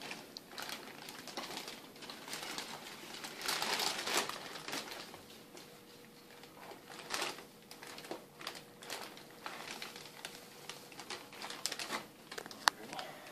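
Thin plastic bag crinkling and rustling as hands dig through it and lift out a piece of live rock, with a sharp click near the end.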